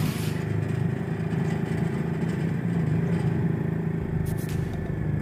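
Engine of a moving road vehicle running steadily at cruising speed, with road noise and a few light rattles about four seconds in.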